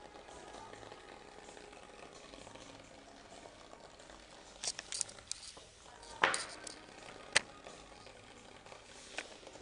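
Bristlebot, a toothbrush head shaken by a small vibration motor, buzzing and rattling its bristles across a wooden tabletop in a steady fizz. A few sharp knocks break in, the loudest about six seconds in and another just after seven seconds.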